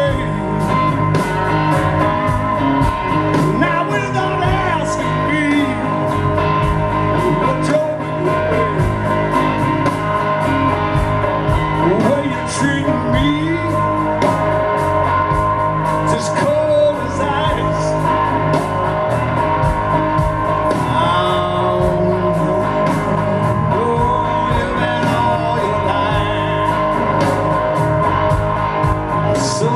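Live blues-rock band playing: electric guitar, bass, drums and keyboards, with a male singer. Cymbal strokes tick steadily over the top.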